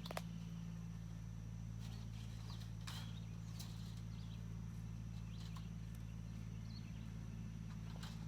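Steady low hum of an engine idling, with a few scattered short clicks and knocks.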